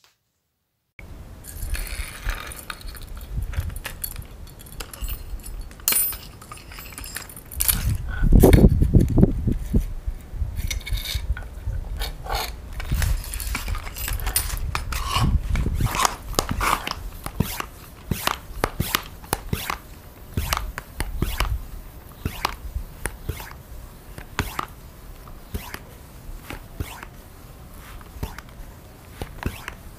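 Handling noise: scattered clicks and scrapes as the air rifle's brass fittings and parts are handled, with a louder low rumble about eight to ten seconds in.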